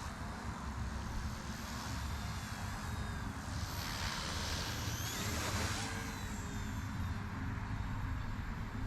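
Eachine E119 micro RC helicopter flying: its coreless main motor and rotors whine steadily, and the whine swells and rises in pitch about four to six seconds in.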